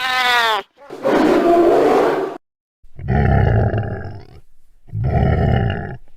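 A series of loud, animal-like roars: a swooping call, then a longer rough one, then, after a short silence, two more roars about two seconds apart, each with a falling pitch.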